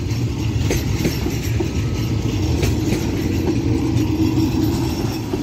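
Electric multiple-unit passenger train passing at speed: a steady rumble of wheels on rails, with a few sharp clacks as wheels cross rail joints.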